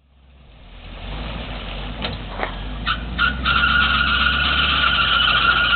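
Vehicle engine running with a low rumble, fading in at the start. A couple of sharp clicks come around two seconds in, then a steady high squeal joins from about three seconds in and holds.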